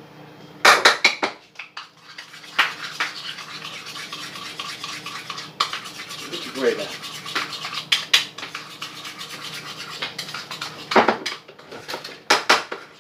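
Dishes and utensils clattering in a kitchen sink being washed, with a steady hiss of running tap water. A burst of clatter comes about a second in, scattered knocks follow, and another cluster of clatters comes near the end.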